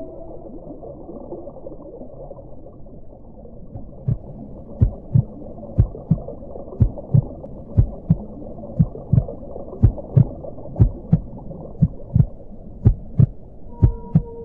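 Ambient electronic soundtrack: a low steady drone, joined about four seconds in by a pulse of soft low double thumps, about one pair a second, like a slow heartbeat, each with a faint tick.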